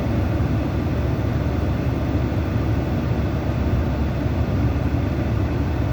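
Steady low rumbling noise without distinct events, strongest in the bass.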